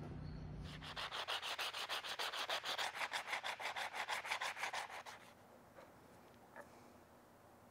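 Hand sanding with a sandpaper block on a painted wooden centerboard around its freshly drilled pivot hole. Quick, even back-and-forth rubbing strokes start about a second in and stop about five seconds in.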